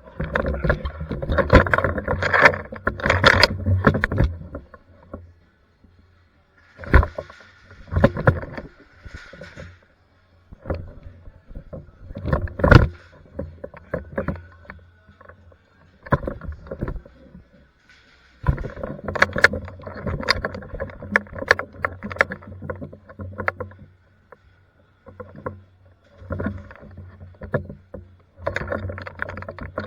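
Krytac Trident Mk II airsoft electric light machine gun firing long full-auto bursts, a rapid stream of shots over the hum of its motor. There are three bursts: one of about four seconds at the start, one of about five seconds in the second half, and one beginning near the end, with a few single sharp cracks in between.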